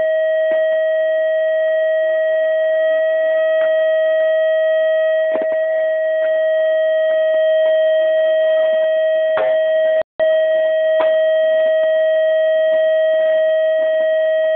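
A loud, unchanging electronic tone with a ring of overtones, like a test tone or a recording fault, cut off for an instant about ten seconds in.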